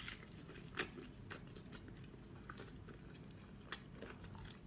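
Faint wet chewing and biting of sea cucumber, with scattered sharp mouth clicks every half second to a second.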